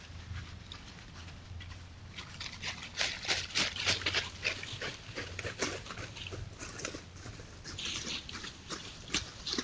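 Coyote's footsteps crunching and rustling through dry fallen leaves, a dense run of crackles starting about two and a half seconds in, over a steady low hum.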